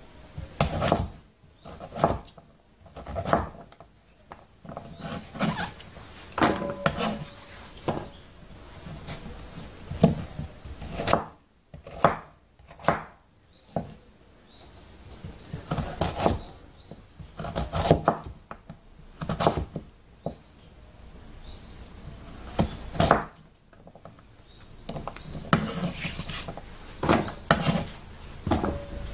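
Kitchen knife cutting a white Korean radish into chunks on a wooden cutting board: each cut ends in a sharp knock of the blade on the board, irregularly, about once every second or two, with softer scraping between cuts.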